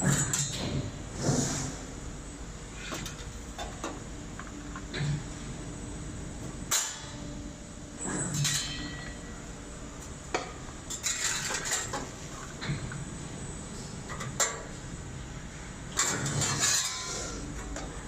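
Irregular metallic clanks and knocks from a CNC press brake and the sheet metal being worked on it, some ringing briefly, over a steady machine hum.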